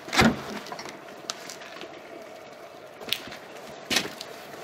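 Close movement and handling noise from a man walking with a slung rifle and a bundle: a sharp knock just after the start, smaller knocks about three and four seconds in, over a steady hiss.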